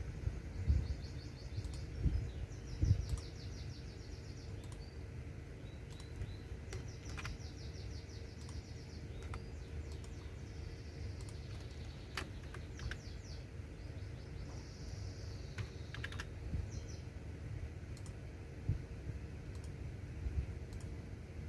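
Typing on a computer keyboard: irregular key clicks and soft thumps. High, rapidly repeated chirping trills come and go in the background every few seconds.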